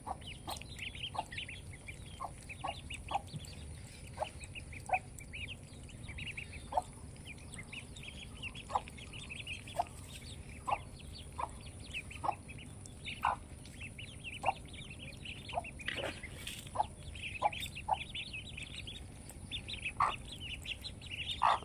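Ducklings peeping: a constant chatter of high chirps, with short sharp lower calls repeating about once a second.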